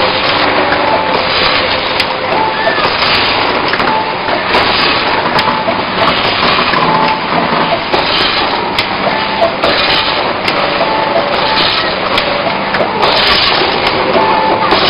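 Triangle-bag snack packing machine running, with a steady mechanical clatter and short repeating tones over dense factory noise.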